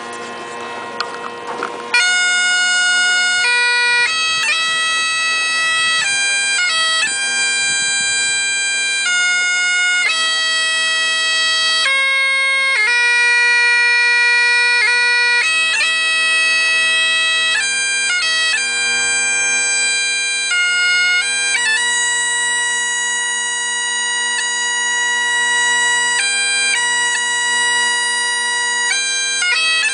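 Great Highland bagpipe played solo: the drones sound alone at first, and about two seconds in the chanter comes in loudly with a slow tune of long held notes over the steady drones.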